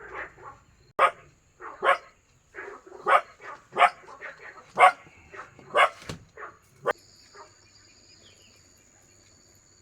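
An animal calling loudly in a series of short, sharp calls, roughly one a second, that stop about seven seconds in.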